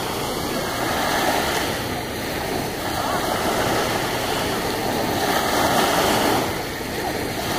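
Small waves breaking and washing up on a sandy shore in calm water: a steady rush of surf that swells and eases every few seconds.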